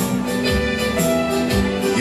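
Live country music on keyboard and acoustic guitar with a low, steady beat, in an instrumental stretch without singing.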